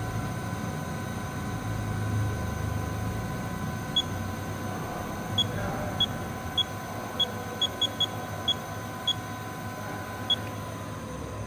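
Haas VF-8 CNC vertical machining center with its spindle running, a steady whine of several tones. About four seconds in, the control beeps about a dozen times in quick, irregular presses. Near the end the highest tone of the whine drops out as the spindle speed changes.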